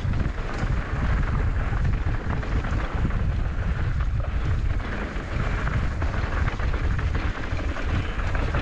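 Wind rushing over the camera microphone on a mountain bike riding a dirt forest trail, with the tyres rolling over dirt and stones and the bike rattling over the rough ground as a steady stream of small ticks.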